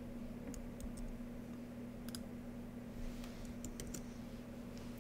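Scattered light clicks of a computer keyboard and mouse, irregular, with a quick cluster about three seconds in, over a faint steady hum.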